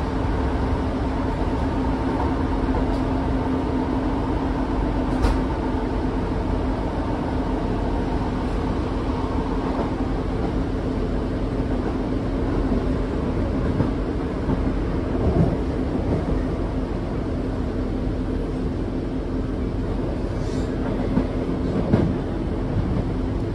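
Inside a Class 150 Sprinter diesel multiple unit: the steady drone of the underfloor diesel and running gear, with a constant hum, and a few short knocks from the wheels or couplings, about five seconds in and twice more later on.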